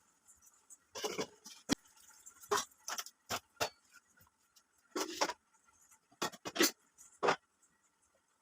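Kitchen utensils and vessels clinking and knocking as they are handled: about a dozen short, sharp clinks, irregularly spaced with pauses between.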